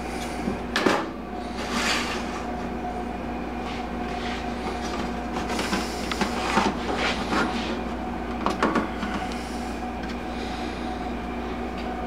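Kitchen handling noises: clicks, knocks and rustles as slices of bread with ham and cheese are set onto a toaster oven's metal broiler pan, the sharpest click about a second in. Under them runs a steady appliance hum.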